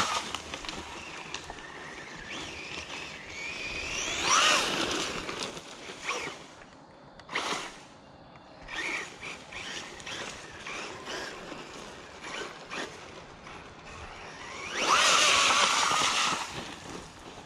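Bezgar HM124 brushless RC car on a 3S lipo driven in bursts across dirt and through a puddle. Its motor whine rises with each throttle punch, mixed with tyre and water-splash noise. The loudest burst comes near the end.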